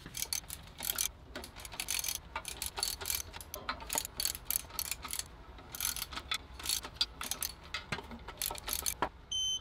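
Hand ratchet clicking in quick runs of strokes with short pauses between, as clutch pressure plate bolts are snugged down onto the flywheel a little at a time.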